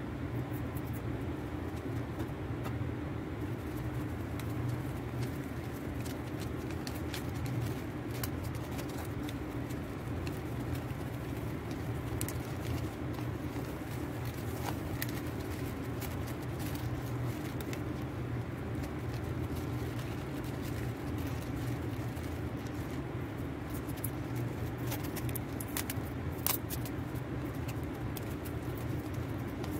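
Paper banknotes and gift-wrap paper being gathered and handled, with light crinkles and clicks here and there, over a steady low background hum.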